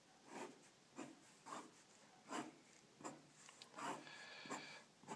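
Graphite pencil sketching on paper: faint, separate scratchy strokes about once every half second to second, with one longer, steadier stroke about four seconds in.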